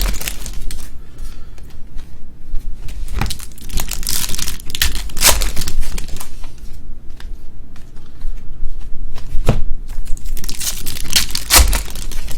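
Foil trading-card pack wrappers being torn open and crinkled by hand, in irregular bursts with quieter handling between, several sharp rips standing out.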